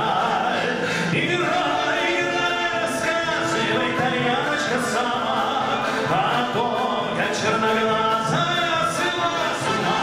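A male singer performing a song with a military brass band accompanying him.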